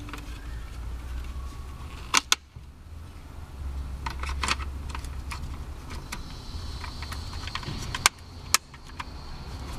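Scattered sharp clicks and knocks, as of hard parts being handled. The loudest come in pairs about two seconds in and about eight seconds in, over a steady low rumble.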